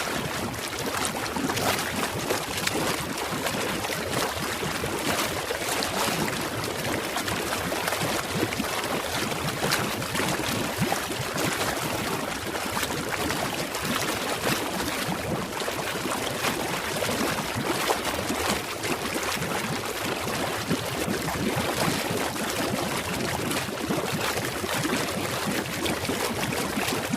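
Bubbles heard underwater: a dense, steady stream of small bubbles gurgling, full of fine pops.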